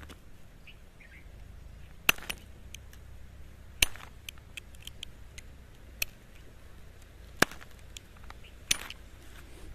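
Knife blade pressed and scraped hard across the polished face of a submersible motor thrust bearing disc in a scratch test of its hardness, giving about five sharp clicks spread irregularly, with fainter ticks between them.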